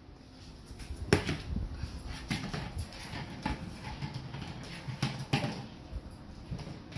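Golden retriever licking peanut butter from a plastic tub and pushing it across a hard floor: a run of sharp plastic knocks and clacks, the loudest about a second in, with softer licking and ticking between.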